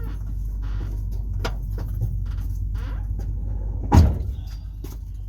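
A car door shutting with one heavy thump about four seconds in. Under it runs a steady low engine hum with a few small clicks and knocks.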